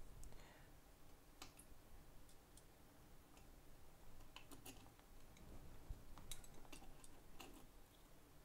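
Near silence broken by scattered faint clicks and light taps as hands handle a circuit-board holder and plug a cable into the board. The clicks come singly and in small clusters, most of them in the second half.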